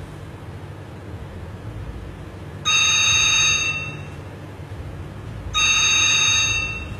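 A telephone ringing twice, each ring about a second long and starting suddenly, a couple of seconds apart, over a steady low hum.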